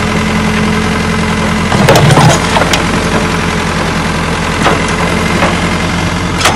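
An engine running steadily at idle, with sharp knocks over it: a quick cluster of knocks about two seconds in, the loudest, and a few single knocks later.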